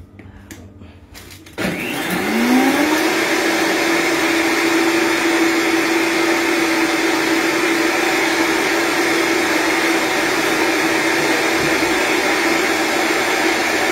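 Countertop blender switched on: a few clicks at the controls, then about a second and a half in the motor starts suddenly and spins up with a rising whine to a steady, loud run, blending a thick smoothie of oats, cereal, yogurt and milk.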